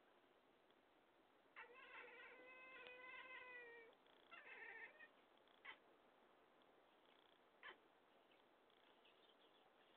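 Cat meowing: one long drawn-out meow about one and a half seconds in, then a shorter meow. Two short clicks follow later.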